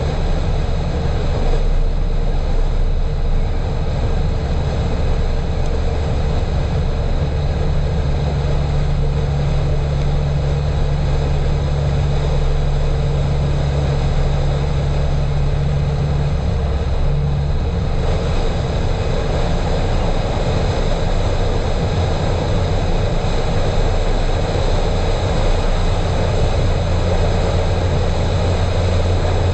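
A car driving at steady speed, heard from inside the cabin: a low engine drone with tyre and road noise, and a steady humming tone that stands out for several seconds in the middle.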